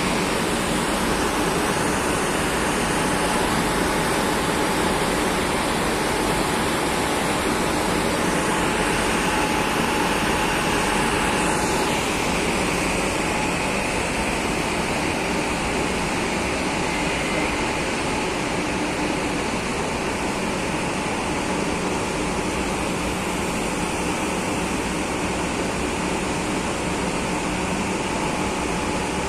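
Madrid Metro series 2000A train at the platform, giving a steady noise of its running equipment. A faint whine runs under it and stops about twelve seconds in.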